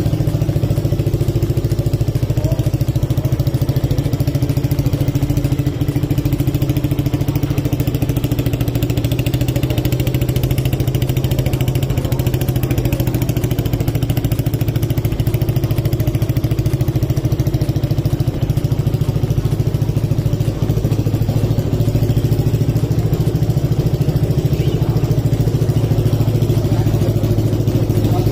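Yamaha R15 V3's single-cylinder engine idling steadily through an aftermarket Yamaha Daytona full-system exhaust. It has a throaty exhaust note at an even, unchanging pitch.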